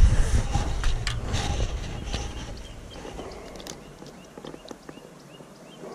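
Rustling and low rumble of handling close to the microphone, fading after about two seconds, with a few sharp clicks as a small wader fish is held in the hand and unhooked. A faint high chirp repeats about three times a second in the background from about halfway.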